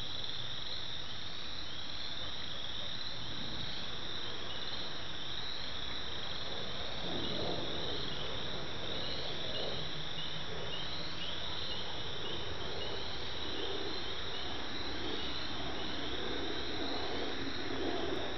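A steady high-pitched trilling chorus with a fast, even pulse. A fainter, irregular low noise joins about seven seconds in.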